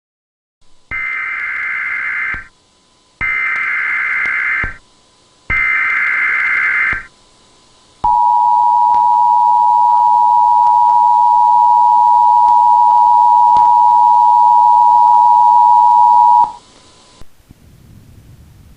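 Emergency Alert System activation tones. Three short bursts of digital header data about a second apart, then the steady two-tone attention signal for about eight seconds, which cuts off suddenly. They mark the start of a new alert.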